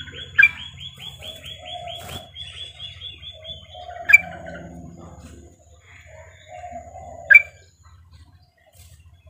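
Female yellow-vented bulbul (trucukan) calling, the kind of call used to lure males into answering. For the first five seconds or so it gives a rapid run of short high notes, about ten a second. Three loud, sharp chirps stand out, spaced about three seconds apart, with lower calls in between.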